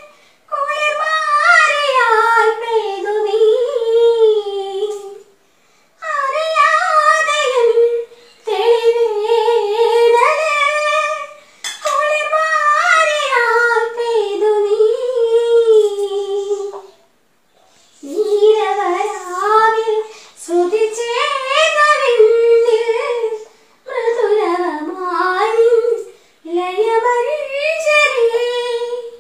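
A woman singing a song unaccompanied, in phrases of two to five seconds with short pauses for breath between them.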